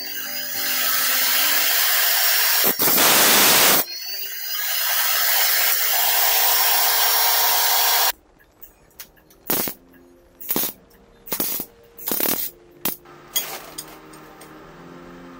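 Electric abrasive cut-off saw running and grinding through a steel pipe, loudest about three seconds in; it stops abruptly after about eight seconds. A few sharp knocks follow over soft background music.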